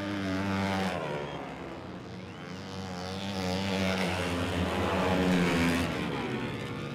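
Flat-track racing motorcycle engines revving as bikes go past on the dirt oval, rising and falling in pitch, loudest about a second in and again around five seconds.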